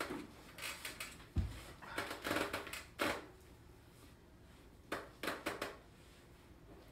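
Short bursts of rustling and crinkling as strawberry plants and their wrapping are handled, with a dull thump about one and a half seconds in.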